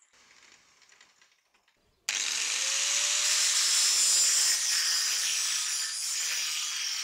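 Near silence, then about two seconds in an angle grinder with a thin cut-off disc starts abruptly, grinding along the edge of a steel knife blank: a steady hiss of abrasive disc on steel over the faint whine of the motor.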